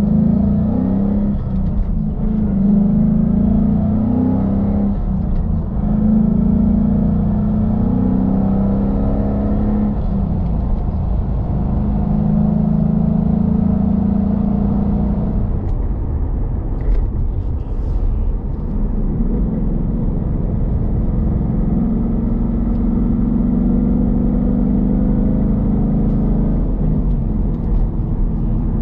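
Ford Mustang GT's 5.0 V8 with a Roush cat-back exhaust, running under load while being driven. The low exhaust note shifts in pitch and level every few seconds.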